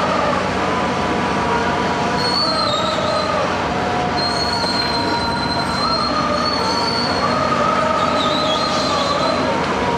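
Heavy construction machinery running steadily, with high-pitched metallic squeals that hold, shift in pitch and come and go throughout.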